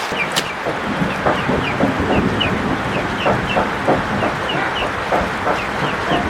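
Chickens clucking, with many short high peeps mixed in, over a steady hiss of heavy rain.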